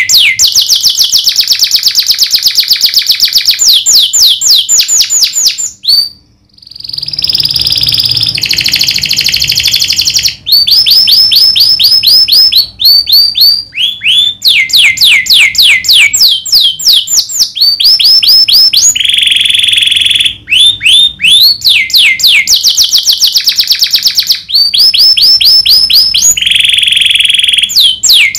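Domestic canary singing a long, loud song: fast runs of repeated falling whistled notes alternating with buzzing rolled trills. The song breaks off briefly about six seconds in, then carries on.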